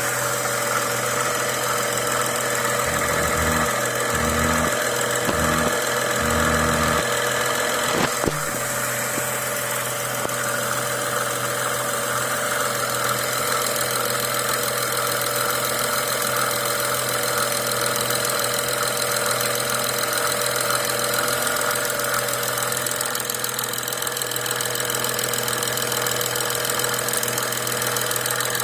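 BMW N55 turbocharged inline-six idling steadily after a rebuild, with a repeating, resonating noise from the middle of the cylinder head area that the owner cannot identify.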